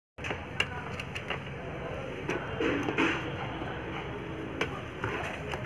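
Screwdriver working the screws of a mixer grinder's plastic base, giving several short sharp clicks and scrapes over a steady background hiss.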